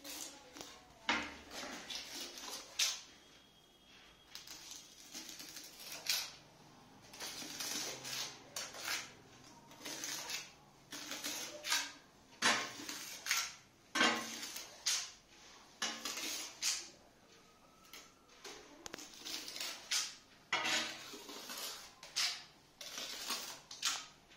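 Steel trowel scraping and spreading cement tile adhesive over a hard mosaic floor in repeated short strokes, with metallic clinks as it scoops from the bucket.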